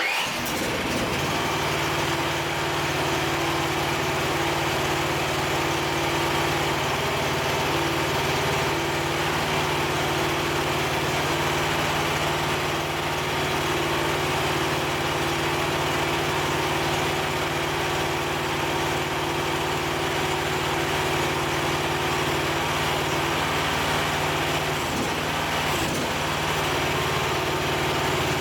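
Mini skid steer's gas engine coming on at the start and then running steadily at a constant speed.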